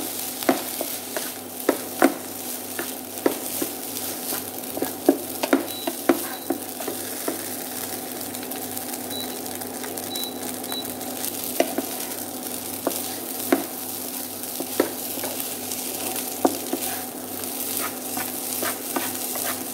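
Fried rice with dried fish and green chilies sizzling in a nonstick frying pan while a wooden spatula stirs and tosses it, with frequent light knocks and scrapes of the spatula against the pan.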